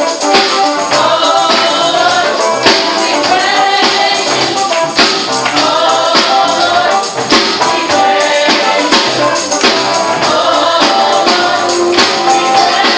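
Youth choir singing a gospel praise song, with a tambourine shaken and struck on the beat.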